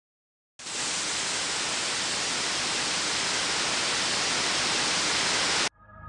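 Steady electronic hiss like white-noise static. It starts abruptly about half a second in and cuts off sharply near the end, where music comes in.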